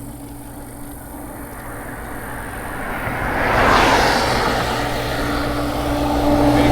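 A motor vehicle passes close by on the road, its noise swelling to a peak about four seconds in and then easing off. A steady engine hum with a low drone continues from midway on.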